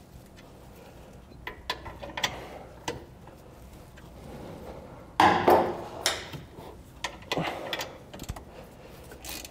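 Hand ratchet clicking as a socket backs out a factory tow-hook bolt, with metal clinks of the socket and tool, and a louder clatter about five seconds in.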